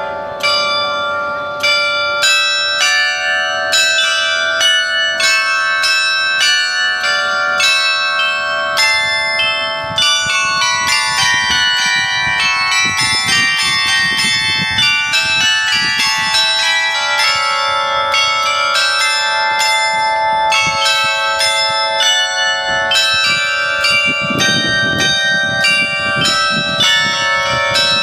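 A wall clock's set of about two dozen tuned bells chiming a tune, struck notes following one another a few times a second and ringing on over each other.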